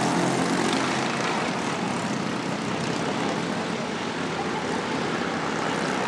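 Small engines of several racing karts running as the pack passes along a distant part of the track. The engine note fades a little after about a second into a steady hum.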